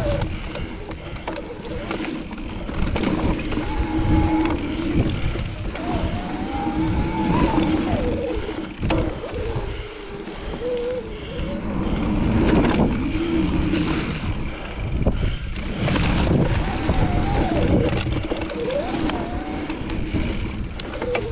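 Santa Cruz Heckler electric mountain bike ridden along a dirt trail: a steady rumble of wind and tyres with knocks from the bumps, over a motor whine that rises and falls in pitch.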